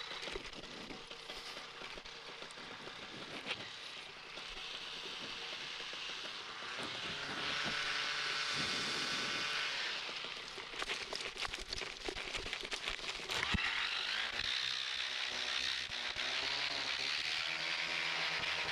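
Paramotor engine and propeller on a takeoff run, the engine pitch rising several times as the throttle is opened, then holding steady near the end.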